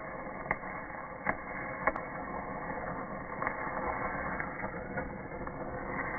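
Stick-welding (shielded metal arc) electrode arc crackling steadily, with irregular sharper pops, slowed down in slow motion so it sounds low and dull.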